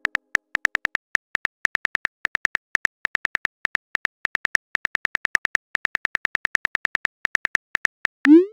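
Simulated phone keyboard clicks, a rapid run of about seven sharp taps a second as a text message is typed, ending near the end with a short rising swoosh as the message is sent.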